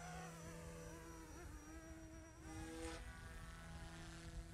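GooSky S2 200-size RC helicopter in flight, its direct-drive brushless main motor and rotors making a faint, thin, insect-like whine. The pitch wavers and shifts as it flies.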